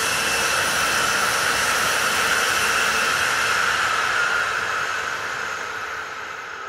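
Shinkansen bullet train passing at speed: a steady rush with a faint high whine, loudest in the first four seconds, then fading away near the end.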